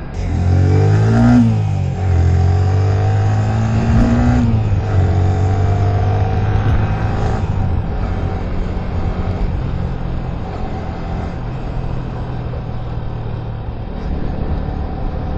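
Motorcycle engine accelerating hard, its pitch climbing and then dropping at an upshift three times over the first eight seconds or so, then running steadier. Wind noise rushes underneath.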